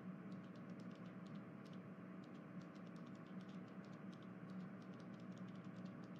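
Faint room tone with a low steady hum and scattered faint clicks, irregular and several a second.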